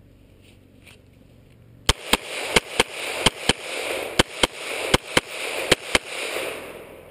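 Glock 17 9mm pistol firing a rapid string of about fifteen shots, roughly three or four a second, starting about two seconds in, the reports ringing on between shots and dying away after the last one.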